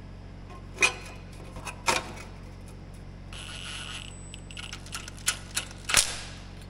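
A few sharp metallic clicks and clunks as the sheet-metal shroud and its bolts go back onto a Kohler K-Series engine, with a cordless impact driver whirring for about a second a little past the middle.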